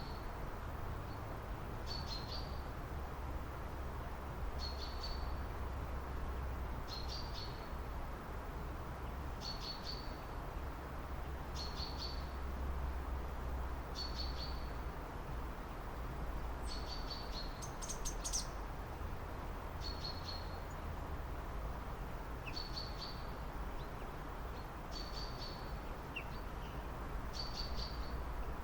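A bird repeating one short, high chirping call about every two seconds, with one brighter, higher call about two-thirds of the way through. Underneath runs a steady low rumble of background noise.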